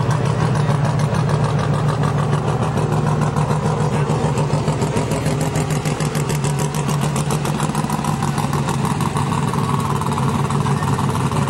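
Engine idling steadily with an unbroken low hum and rapid, even firing pulses.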